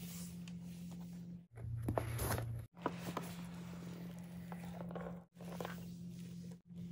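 A cardboard mailer box being handled and its lid opened: soft scrapes, taps and rustling of cardboard and plastic wrap over a steady low hum, with one louder rustly stretch about two seconds in. The sound drops out briefly several times.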